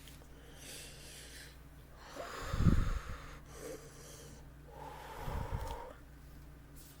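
A person breathing out hard twice, two breathy puffs about two and a half seconds apart, the first the louder.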